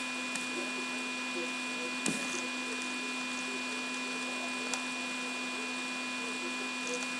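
Steady electrical hum and hiss with a few fixed tones, and a faint click about two seconds in and another near five seconds.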